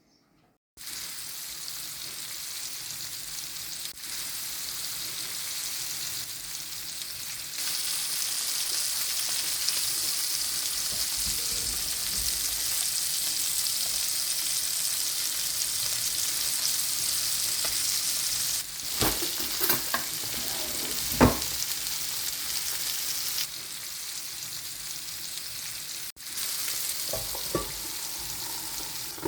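Sardines frying in sunflower oil in a pan: a steady sizzle that starts abruptly about a second in and grows louder a few seconds later. A few clinks of a utensil come about two-thirds of the way through.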